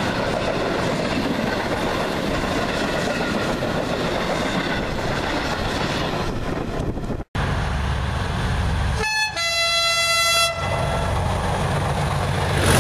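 Freight wagons rolling past with steady rail noise and wheel clatter. After a cut, a pair of approaching Class 37 diesel locomotives sound a two-tone horn for about a second and a half, a brief higher note then a longer lower one. The rumble of their English Electric V12 engines grows louder near the end.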